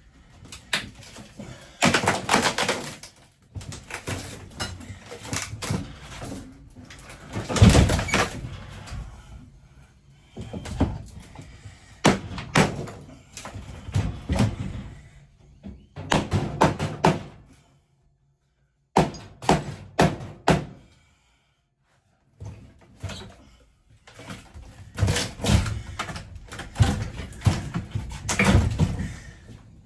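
Repeated knocks, thuds, bangs and scraping of RV interior cabinetry and panels being pried, pulled loose and handled during a teardown, broken by two short silences near the middle.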